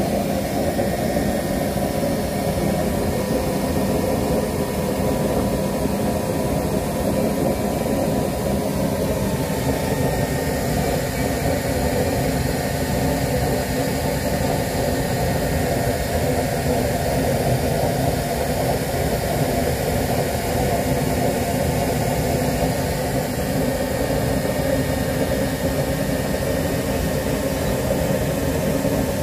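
Homemade used-oil burner stove running at full flame: a steady, unchanging rushing noise of flame and air.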